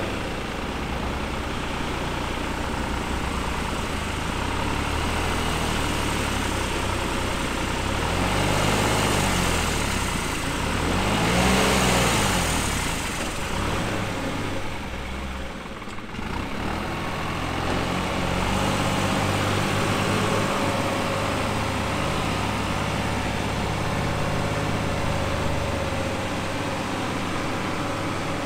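Diesel engines of a farm tractor and a motorhome running under load as the tractor tows the motorhome out of soft mud. About a third of the way in, the engine revs up and falls back twice, the second time loudest, then settles to steady running.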